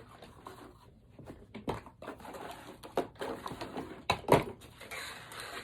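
Handling of small plastic toy figures and their packaging: rustling with scattered clicks and knocks, the loudest knock about four seconds in.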